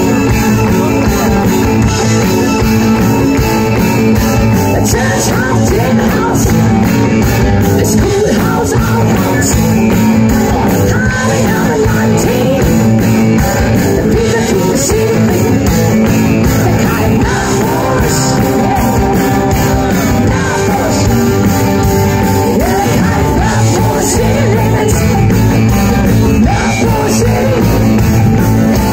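Live rock band playing at full volume: electric guitars, drums and keyboard with a lead vocal, heard loud and dense from the audience in front of the stage.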